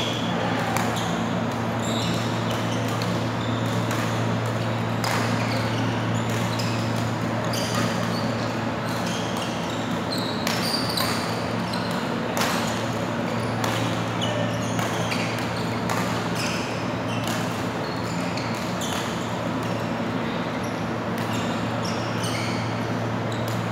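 Badminton rallies: irregular sharp racket strikes on the shuttlecock, over a steady low hum.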